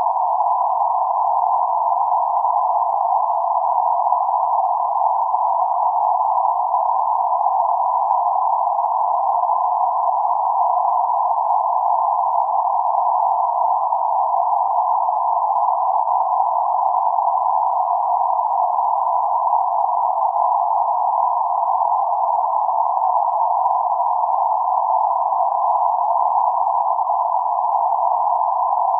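Synthetic band-limited noise centred around 848 Hz: a steady, unchanging hiss confined to a narrow band of the mid frequencies, so it sounds like a soft tone-coloured rush.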